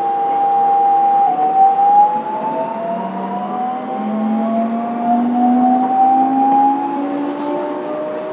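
Fukuoka City Subway 2000 series electric train pulling away, heard from inside the car: the inverter and traction motors give a steady tone that shifts about a second in, then several tones rise in pitch together as the train gathers speed.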